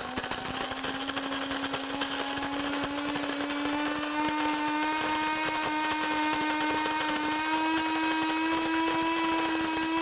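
Cuisinart DBM-8 Supreme Grind electric burr grinder running, grinding coffee beans on a medium setting: a steady motor whine that rises slowly in pitch, over the crackle of beans being crushed.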